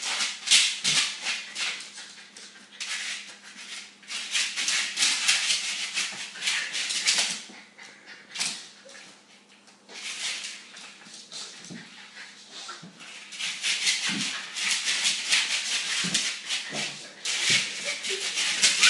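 Jack Russell terrier scratching and scraping at a small mat on a tile floor with its claws, in quick runs of pawing. There is a quieter pause about halfway through.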